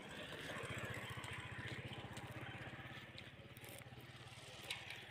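A small motorcycle engine running as it passes close by: a low, fast-pulsing hum, loudest about a second in and fading after about three seconds.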